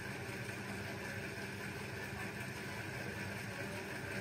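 Kyocera 2040dn laser printer humming steadily as it warms up after being switched on.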